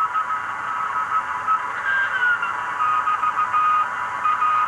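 Morse code (CW) signals on the 40-meter amateur band through the speaker of a homebrew vacuum-tube shortwave receiver, with its BFO on: a steady beat tone keyed in dots and dashes over band hiss. A second signal slides down in pitch about two seconds in.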